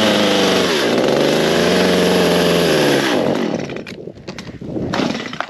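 Two-stroke chainsaw running at high revs. Its pitch dips and picks up again about a second in, then it slows and dies about three seconds in, a stall the owner puts down to the engine being flooded.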